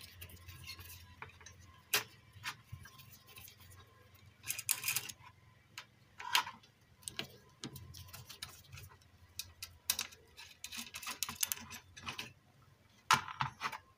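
Screwdriver clicking and scraping on the metal chassis and amplifier heat sink of a car stereo as the heat-sink screws are worked loose: scattered small ticks and several short scratchy bursts.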